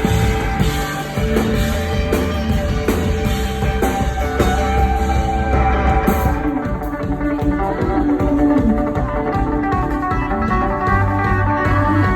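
Live band music: guitar and bass with a drum kit keeping time. About halfway through, the drums and cymbals drop away, leaving mainly the guitars.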